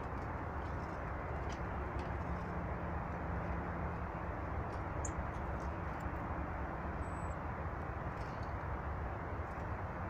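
Steady low rushing outdoor background noise, with a few faint short high bird calls and one brief thin high whistle about seven seconds in.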